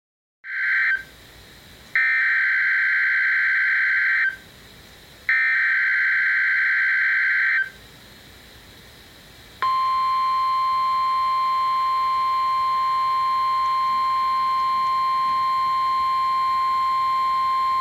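Emergency Alert System signal from a NOAA Weather Radio broadcast. First come the SAME header data bursts: a short burst, then two harsh, warbling bursts of about two seconds each, with brief gaps between them. About ten seconds in, the steady 1050 Hz weather radio warning alarm tone starts and holds.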